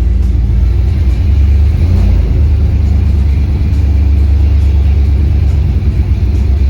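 Dodge 440 big-block V8 running with a steady, deep rumble that gets a little louder about a second in.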